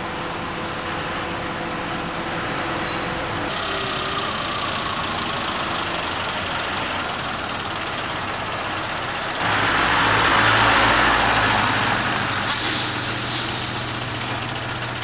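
Construction-site machinery running with a steady engine drone. About two-thirds through, the sound jumps louder, with a low hum under a rushing noise.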